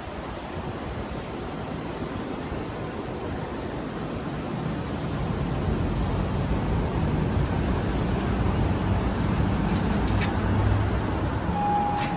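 City street traffic noise that grows louder about halfway through. A short, steady, beep-like tone sounds near the end.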